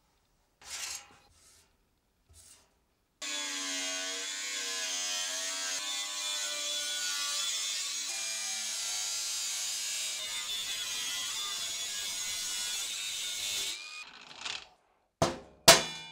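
Angle grinder with a thin cut-off disc cutting through sheet steel for about ten seconds, its motor pitch wavering as the disc loads in the cut. A few faint taps come before it starts, and two sharp knocks near the end.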